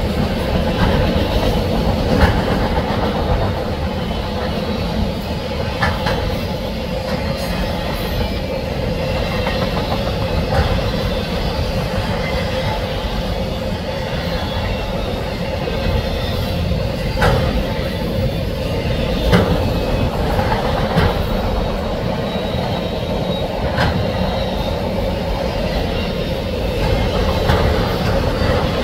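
Auto rack freight cars rolling past on steel wheels: a steady rumble with a constant hum and scattered sharp clicks from the wheels on the rails.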